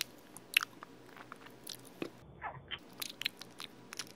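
Close-miked mouth sounds of someone chewing chewy dried sweet potato: irregular wet smacks and clicks several times a second, with a short falling squelch about halfway through.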